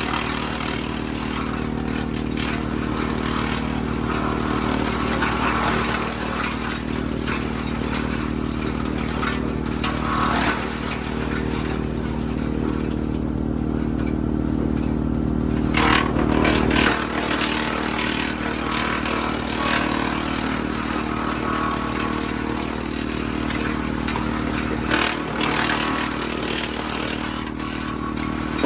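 WoodMaxx MX-8800 PTO-driven wood chipper chipping apple-tree prunings, driven by a Kubota L3901 tractor's diesel engine running steadily under load. Branches are heard clattering and scraping as they are cut. The chipping eases off briefly about twelve seconds in and picks up again around sixteen seconds.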